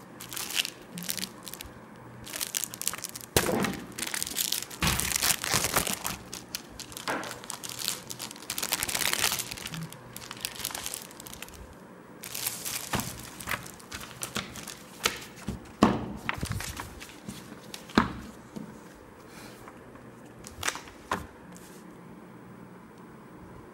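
Packing material being handled as a washing machine is unpacked: irregular spells of crinkling and rustling, broken by sharp cracks and clicks.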